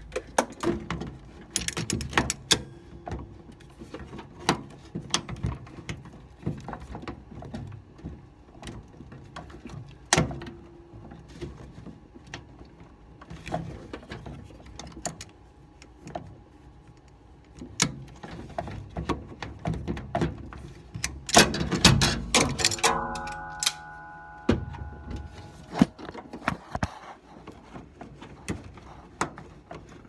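Scattered clicks, knocks and rattles of hands and tools handling a front-load washer's plastic drain pump, hose and clamp, busiest a little past two thirds of the way through. A brief steady hum about three quarters of the way through.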